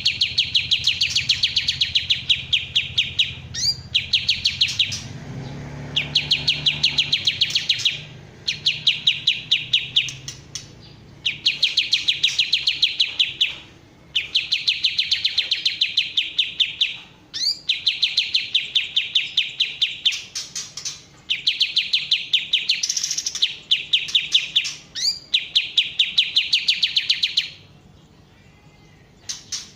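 White-shouldered triller (kapas tembak) singing: a series of about ten loud, fast trills of rapidly repeated high notes, each lasting two to three seconds, with short pauses between them.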